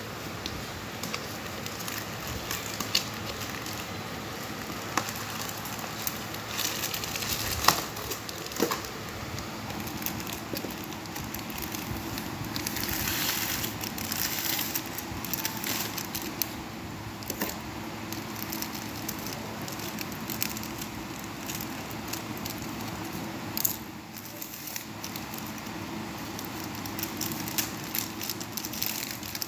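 Hands unpacking a cardboard parcel and handling a product in clear plastic wrap: crinkling and rustling plastic film with scattered clicks and knocks of cardboard.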